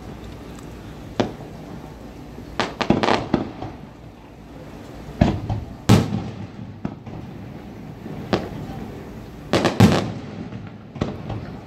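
Aerial firework shells bursting in a string of sharp bangs, some single and some in quick clusters, each trailing off in an echo; the loudest come about six and ten seconds in.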